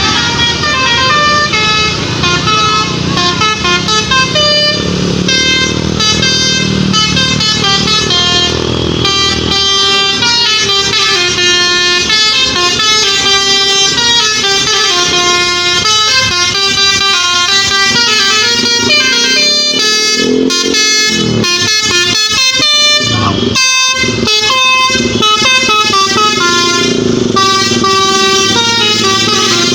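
Tour bus 'telolet basuri' musical air horn playing a tune in stepping, sustained notes, loud throughout, with a few short breaks about two-thirds of the way through. A low engine rumble runs under it for roughly the first third.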